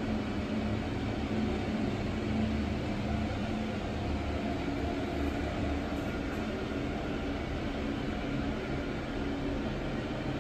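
Steady low hum of room ventilation, with a faint steady tone running through it.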